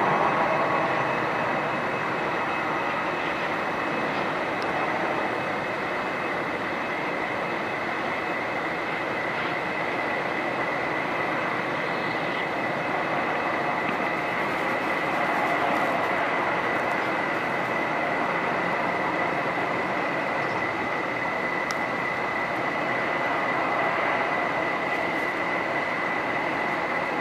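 Airbus A320 jet engines running at low power, a steady rushing noise with a high whine through it, as the airliner rolls out along the runway after landing. The noise eases in the first second or two, then holds even.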